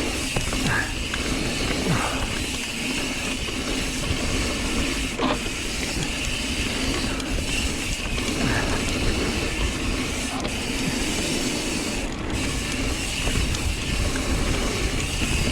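Mountain bike riding down a dirt trail: steady tyre rumble with the mechanical rattle and clicking of the bike's drivetrain and frame.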